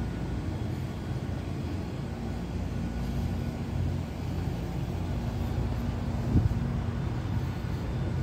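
Steady low hum of an outdoor air-conditioning unit running, with a single knock about six seconds in.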